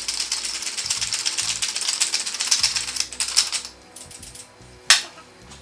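Hand pepper mill grinding black pepper: a fast, crunching, ratcheting rattle that stops after about three and a half seconds. A single sharp click follows near the end.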